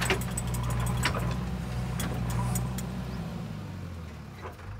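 JCB 3DX backhoe loader's diesel engine running steadily under load while the backhoe digs, with sharp clicks and knocks of the bucket against soil and stones, the loudest at the start and about a second in. The engine hum eases off and gets quieter a little after three seconds in.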